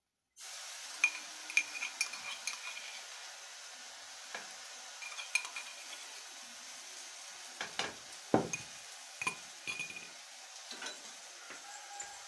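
Steel kitchen vessels clinking and knocking against each other and on the counter, a dozen or so sharp strikes, with one heavier thud about eight seconds in. A steady frying sizzle runs underneath.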